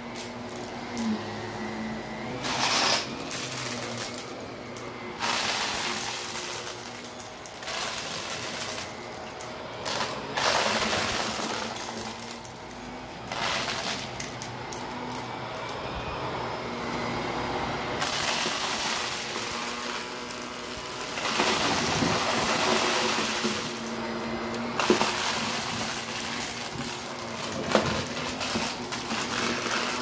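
Shark Navigator upright vacuum running on carpet with its brush roll spinning, sucking up stuffing and small plastic bits that click and rattle up the intake. The suction noise swells and drops every few seconds as the head passes over clumps of debris.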